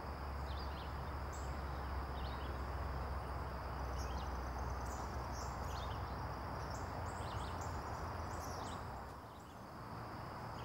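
Wetland ambience: a steady high insect drone with scattered short bird chirps over it, and a low rumble underneath that drops away near the end.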